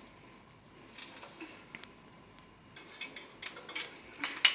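Metal fork clinking and scraping against a stainless steel frying pan and a plate. A few light clicks come first, then a busier run of scrapes and clinks, with the two loudest clinks near the end.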